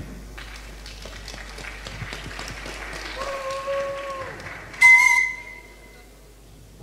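Scattered clapping and crowd noise. A held tone sounds about three seconds in, and a sudden loud whistle-like tone about five seconds in dies away within a second.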